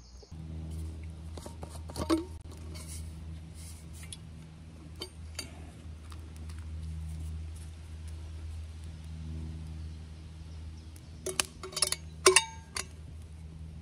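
Stainless steel flask and its metal lid or cup clinking as they are handled, with a cluster of sharp metallic clinks near the end. A few scattered clicks come earlier, over a steady low drone.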